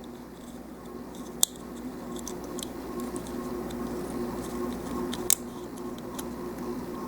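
Plastic model-kit parts being handled and pressed together: two sharp clicks, about a second and a half in and again about five seconds in, as the ankle guard's pegs snap into their holes, with lighter plastic ticks in between. A steady faint hum runs underneath.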